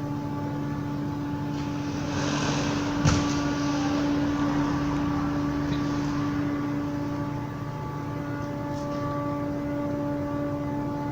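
Steady, loud droning hum of several held tones, the trumpet-like 'sky sound' whose cause the recorders cannot find. About two seconds in a brief hiss swells, and a sharp knock comes about a second later.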